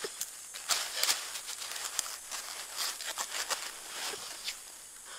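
Dry bamboo leaf litter rustling and crackling as hands brush through it: a run of irregular, crisp crackles, densest in the first two seconds.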